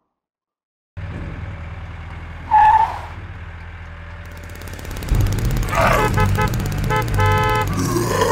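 Dubbed engine sound effect for a LEGO buggy, starting after about a second of silence and idling low, with a short beep about two and a half seconds in. It gets louder and revs up from about five seconds in, joined by a run of short tones.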